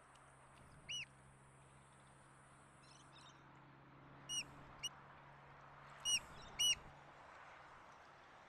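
Sooty oystercatcher calling: short, sharp piping notes, each rising then falling in pitch, one about a second in and then two pairs a few seconds later.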